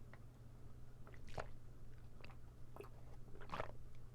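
Close-up mouth sounds of chewing a dense, fudgy cheese tart, with a few separate soft wet smacks and clicks.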